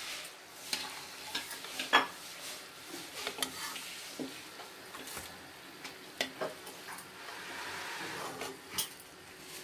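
Gujia deep-frying in oil in a metal kadhai, a soft sizzle, with sharp clicks and scrapes of a perforated metal slotted spoon against the pan as the fried pieces are lifted out.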